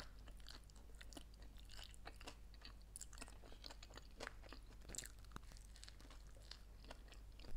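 Quiet close-miked chewing of a grilled pressed sandwich, with small irregular crunches and mouth clicks from the toasted bread and filling, and a few sharper crunches partway through.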